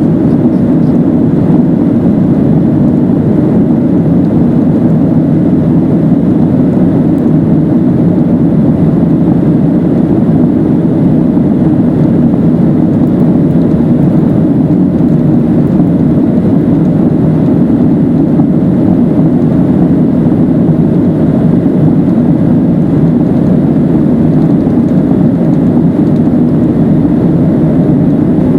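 Boeing 737-700 heard from inside the passenger cabin in flight: the CFM56-7B engines and airflow make a loud, steady, low rumble that does not change.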